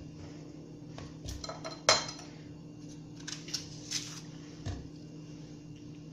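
A kitchen knife clinking and tapping against a glass plate as onions are cut by hand, with pieces dropped into a glass blender jar. There are several light, separate clinks, the loudest about two seconds in, over a steady low hum.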